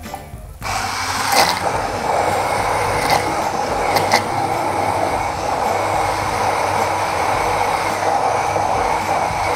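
Hand-held immersion blender switched on about half a second in and running steadily in a plastic beaker, puréeing cooked corn into a cream. A few sharp ticks sound over the steady whir.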